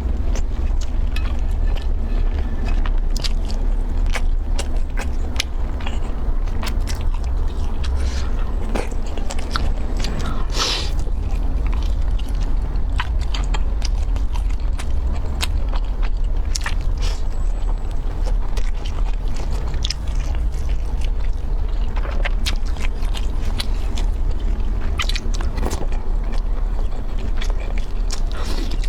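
Close-up eating sounds: crunching, biting and chewing food, with many short crisp crackles, over a steady low hum.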